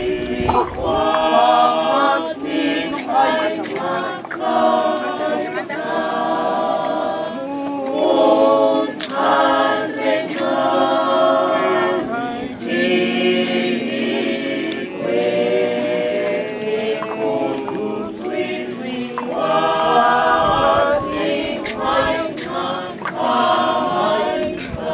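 A group of voices singing unaccompanied, choir-style, in phrase after phrase without pause.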